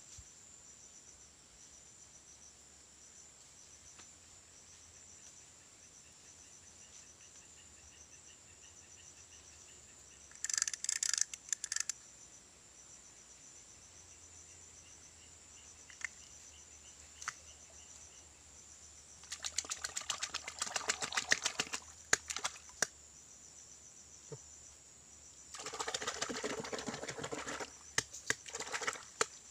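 Steady high-pitched buzz of crickets and other insects. Over it come three bouts of rustling and crackling, about ten seconds in, around twenty seconds and again near the end, from hands working in the grass and mud at a fishing hole.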